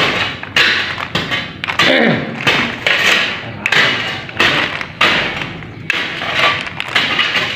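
Handfuls of soil and debris scooped from a metal coffin and dropped into a sack: a run of sudden rustling, scraping thuds, roughly one or two a second.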